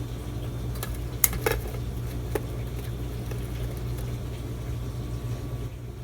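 Kitchenware clinking and knocking, four or five sharp hits in the first couple of seconds as pots and dishes are handled, over a steady low hum.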